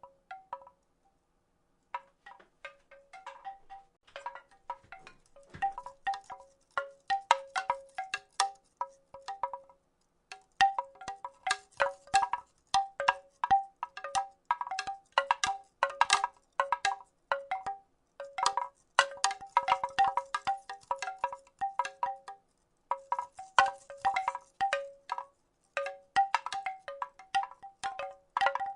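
Wooden rattle shaken in irregular flurries, its wooden pieces clacking with a short, pitched, wind-chime-like ring to each knock. It falls silent briefly near the start and twice more along the way.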